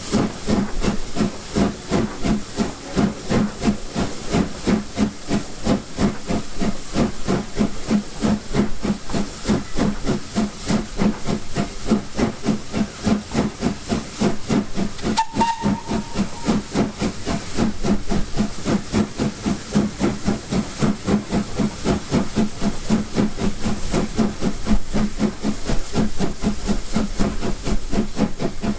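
Steam locomotive S15 No. 506, a two-cylinder 4-6-0, working hard up a steep incline: a steady, even chuffing exhaust beat with steam hiss. There is one short high tone about halfway through.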